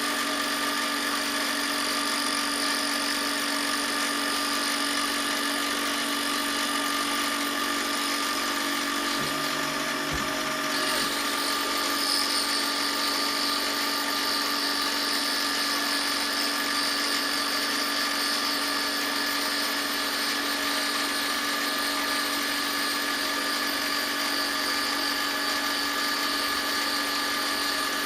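A high-speed power tool motor running steadily, a constant whine that changes slightly in its upper pitch about eleven seconds in.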